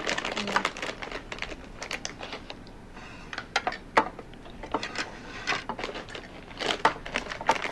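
A run of irregular light clicks and rustles, sharp taps coming a few times a second, with a louder click about four seconds in.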